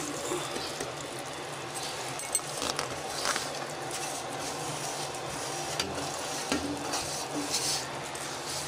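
Melted sugar and water bubbling with a steady hiss in a nonstick pan as cashew powder is tipped in and stirred with a wooden spatula, with a few light clicks of utensils against the pan.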